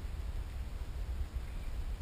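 Low, uneven rumble of wind on the microphone.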